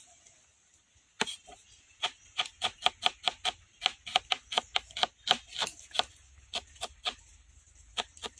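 Kitchen knife slicing an onion on a wooden cutting board: the blade knocks sharply on the board in a quick, slightly uneven run of about four strokes a second. The knocks start about a second in and thin out near the end.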